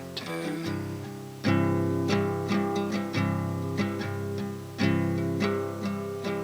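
Acoustic guitar strumming chords in an instrumental passage of a song, with the heaviest strums about a second and a half in and again near five seconds.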